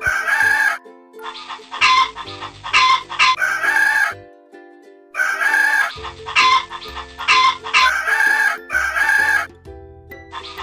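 Chickens calling: hen clucking and rooster crowing, in about nine short, harsh calls that come in two runs with a brief gap between them.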